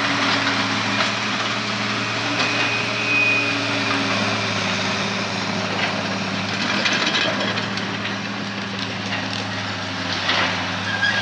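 Heavy demolition machinery's diesel engine running steadily, with a few knocks about six to seven seconds in and again near the end.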